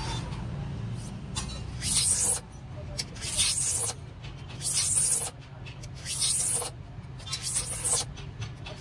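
Metal hand scoring tool scraping grooves into a clear plastic sheet, in repeated scratchy strokes roughly one a second.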